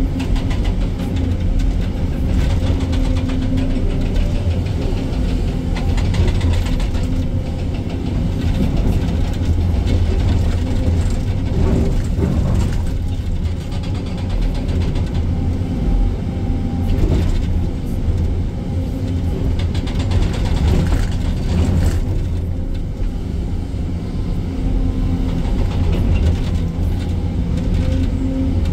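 Excavator's diesel engine running steadily, with irregular knocks and clanks throughout.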